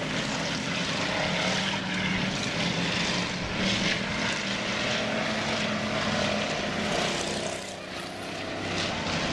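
Several dirt-track stock car engines running hard around the oval, a steady drone with a brief dip about three-quarters of the way through before it builds again.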